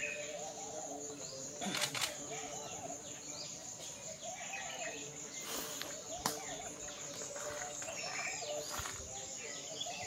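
Small birds chirping in short calls over a steady high drone of insects, with a few sharp clicks, one about two seconds in and another about six seconds in.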